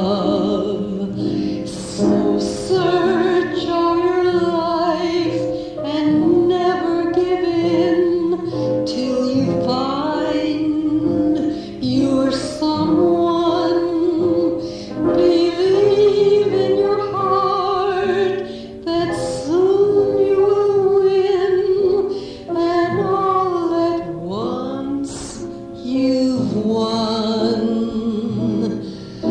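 A woman singing sustained, wavering notes over held Hammond B3 organ chords, an old live recording restored from cassette.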